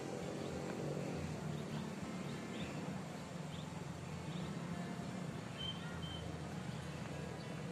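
Train running along the track, heard from on board: a steady low rumble with a faint hum, and a few faint short high chirps.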